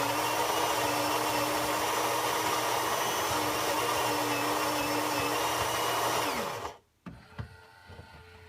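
Built-in coffee grinder of a Saeco Incanto Classic espresso machine running steadily as it grinds beans for a small espresso shot, then winding down and stopping about seven seconds in. Quieter mechanical clicks and a low hum from the machine follow.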